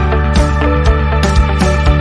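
Background music with a steady beat, about two drum hits a second over held bass and synth notes.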